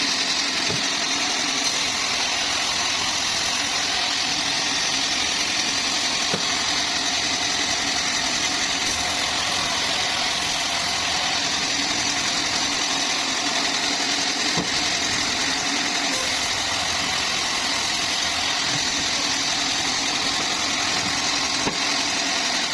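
Sawmill machinery running steadily, a constant mechanical noise that does not change in level.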